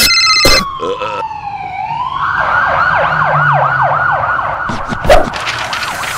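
Ambulance siren sound effect: a long falling tone, then from about two seconds in a fast wail sweeping up and down about three times a second. A sharp hit comes about five seconds in.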